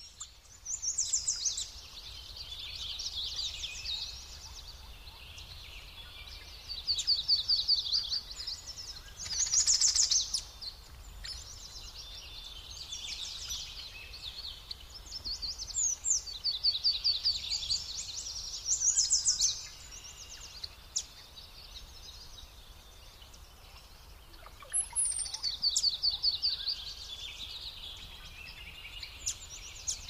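Songbirds singing: short, fast, high-pitched trilled phrases that repeat every few seconds, over faint low background noise.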